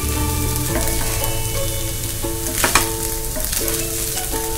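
A spatula stirring and scraping poha (flattened rice) in a frying pan, with a light sizzle and a couple of sharper scrapes against the pan about two and a half seconds in. Soft instrumental background music plays underneath.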